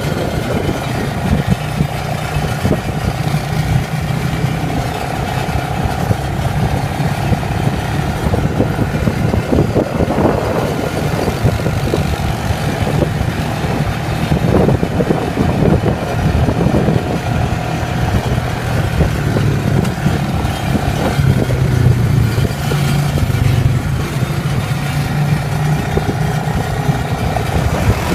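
ATV (quad bike) engine running steadily under way, its pitch holding fairly even with small rises and falls.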